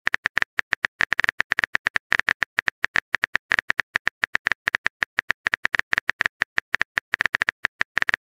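Phone keyboard typing sound effect: a rapid run of short, sharp key clicks, about eight a second, as a text message is typed out.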